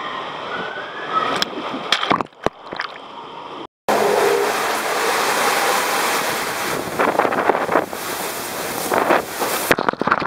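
Water rushing through an enclosed water-slide tube as a rider slides down, with a few sharp knocks. The sound cuts out briefly about four seconds in, then comes back louder.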